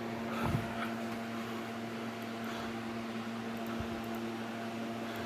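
A steady electrical hum with several overtones over a faint hiss, with a soft low thump about half a second in.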